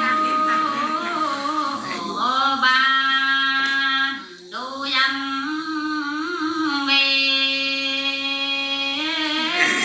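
A woman singing solo in a traditional call-and-response folk song, holding long, steady notes with a slight waver and a short break about four seconds in.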